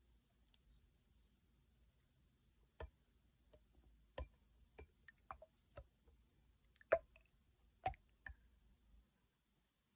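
Clear slime being pressed and poked by hand, giving an irregular run of sharp clicks and small pops, the loudest about seven seconds in.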